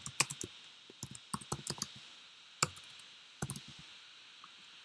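Keys tapped on a computer keyboard while a word is typed. There is a quick run of keystrokes in the first two seconds, then a few single taps, the last about three and a half seconds in.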